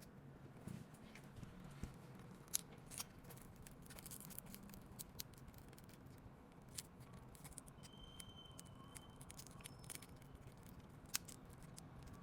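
Quiet, sparse clicks, ticks and light scrapes of small hand tools working on an iPhone 15 Pro Max during a back-glass replacement, with a few sharper ticks standing out.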